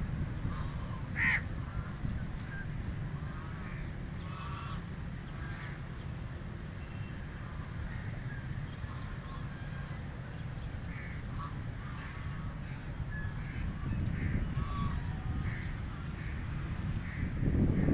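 Ducks quacking in short, scattered calls, one louder call about a second in, over a steady low rumble. A thin high whistling tone sounds twice.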